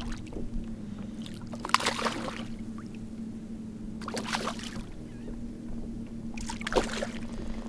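Kayak paddle dipping into the water in three splashing strokes a couple of seconds apart, over a steady low hum.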